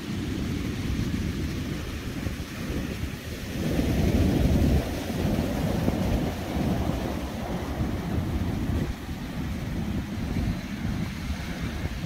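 Ocean surf breaking on a pebble beach, with wind buffeting the microphone in a steady low rumble that swells about four seconds in.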